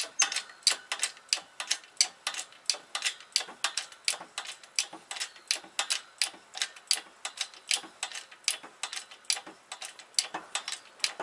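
Hand-pumped hydraulic bottle jack on a shop press, its pump handle working in a steady run of sharp clicks, several a second, as the ram presses a wheel hub into a new wheel bearing.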